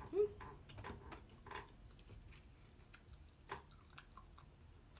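Close-miked chewing of chocolate Easter egg pieces: soft, scattered mouth clicks and wet smacks, with a brief pitched vocal sound just after the start.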